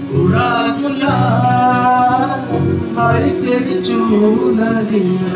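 A song playing: a sung melody over instrumental backing.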